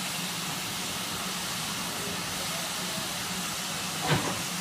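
Steady hiss of steam from a standing GWR steam locomotive, with a short, louder sound about four seconds in.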